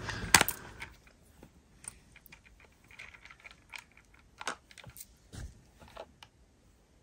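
Scattered light clicks and taps of small objects being handled and moved about, with one louder knock right at the start.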